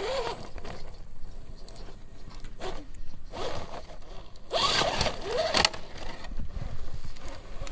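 RC rock crawler's electric motor and geared drivetrain whining in short bursts that rise and fall in pitch as the throttle is worked, loudest and harshest about four and a half seconds in.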